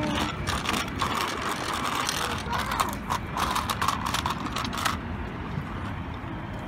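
A child's small bike with stabiliser wheels rattling and clicking as it rolls over the pavement, a rapid clatter that drops away about five seconds in as the bike moves onto grass.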